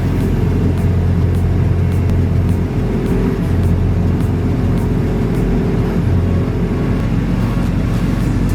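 The engine of a heavy wood-chipping machine running steadily under load, a deep hum that swells and dips slightly, with background music over it.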